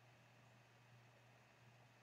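Near silence: only a faint steady low hum and hiss.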